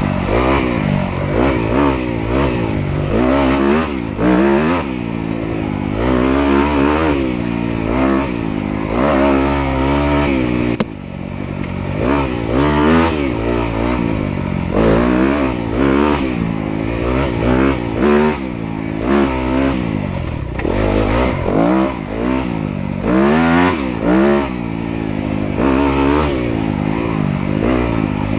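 Dirt bike engine revving up and down over and over as the throttle is opened and closed, its pitch climbing and falling every second or two, with a sudden brief drop in level about eleven seconds in.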